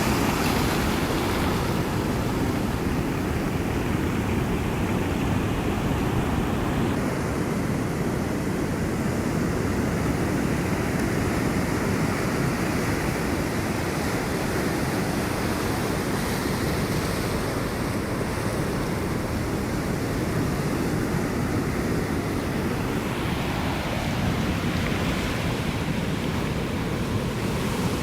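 Ocean surf: waves washing ashore in a continuous, steady low rush, swelling a little brighter near the end.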